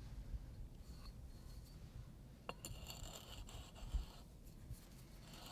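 Galvanized steel elbow fitting being set on a pipe end coated with pipe dope and turned on by hand: a sharp metal click, then faint scraping and rubbing of the threads, with a soft thump midway.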